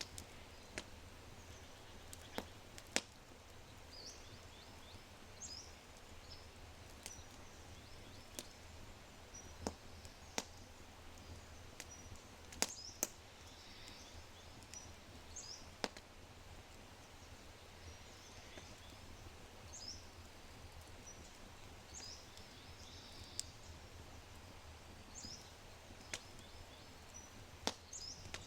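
Oak fire crackling in a brick fireplace, with sharp, irregular pops every second or two. Birds give short high chirps throughout.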